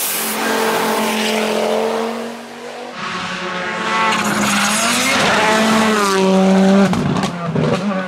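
Rally car engine at full throttle, its pitch climbing and dropping with gear changes and lifts off the throttle, with an abrupt change about three seconds in. A rapid run of sharp cracks comes near the end.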